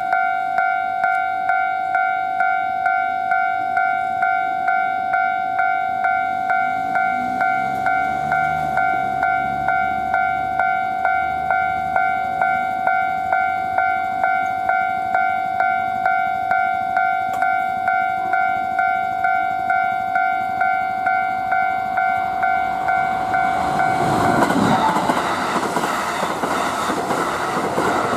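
Level crossing alarm ringing steadily, a two-tone clang repeating nearly twice a second. About 23 seconds in, a Kintetsu Hinotori limited express passes through the station at speed, its running noise swelling loud over the alarm.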